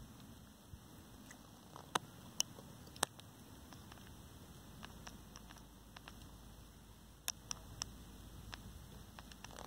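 Faint steady background with scattered sharp clicks: three loud ones about two to three seconds in, three more close together near eight seconds, and fainter ticks between.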